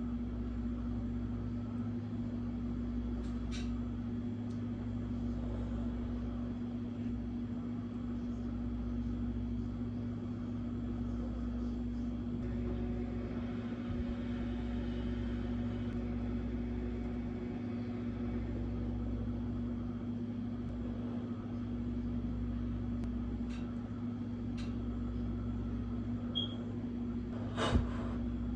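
Steady low mechanical hum with a low rumble underneath, and a short sharp sound near the end.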